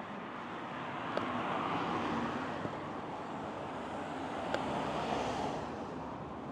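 Road traffic: cars passing on a road, a rushing tyre and engine noise that swells and fades, with two brief clicks about one and four and a half seconds in.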